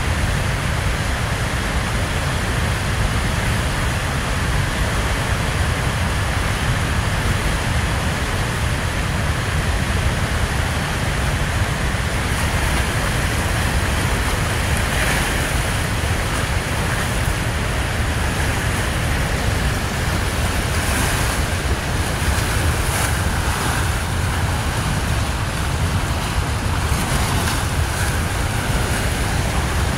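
Turbulent, foaming floodwater rushing and churning past, a steady loud rush.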